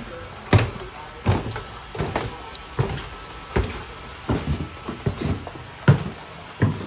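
Footsteps climbing a flight of stairs: a steady run of about nine short, heavy thuds, a little more than one a second.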